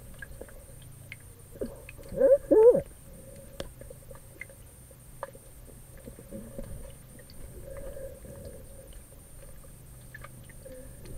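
Muffled underwater sound picked up by a camera submerged in a swimming pool: a low steady hum with faint clicks and crackles. About two seconds in, a person's voice, muffled by the water, calls out briefly with a wavering pitch.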